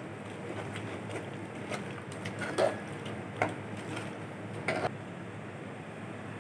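A metal spoon stirring thick dal in a pressure cooker pot, scraping and knocking against the pot's sides a handful of times, over a faint steady hum.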